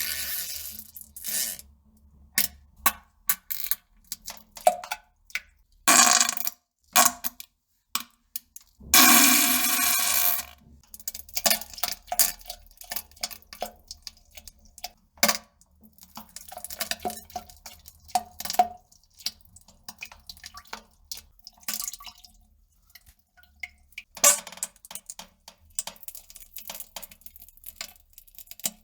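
Wet, crackly farting and pooping sounds: irregular crackles and short sputters, with longer noisy blasts about six, nine and twenty-four seconds in.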